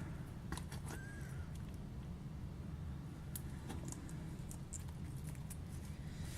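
Faint scattered clicks and soft handling noises of hands working bead-filled slime, over a low steady hum.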